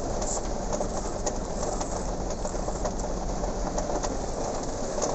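Toy cement mixer truck pushed back and forth over floor tiles: a steady rumble from its plastic wheels and gearing, with many small rapid clicks.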